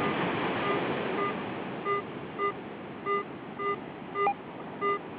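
Garrett AT Pro metal detector sounding a short, steady-pitched target beep about twice a second as its submerged coil is swept over a target about 20 cm down in wet salt sand: a clean, distinct signal with the ground balance set for salt water. Under it runs a steady hiss of wind and surf.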